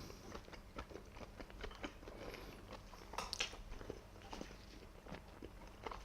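Close-up eating sounds: a person chewing soft steamed scallop meat, with small wet mouth clicks and smacks scattered throughout.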